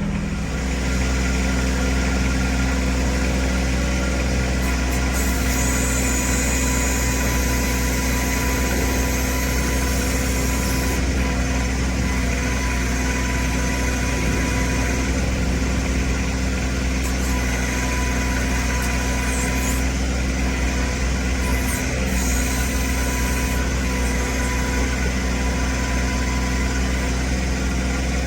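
John Deere 1026R compact tractor's diesel engine running steadily, picking up slightly just under a second in and then holding an even speed.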